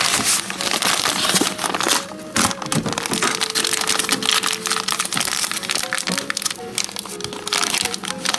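Clear plastic bags crinkling as clumps of foam model foliage are shaken and poured out into a tray by hand, over background music.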